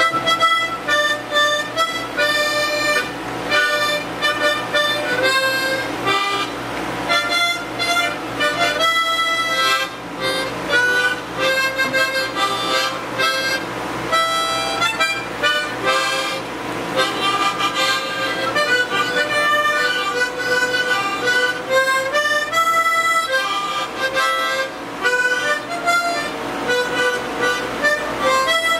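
Harmonica playing a lively tune of quick-changing notes and chords.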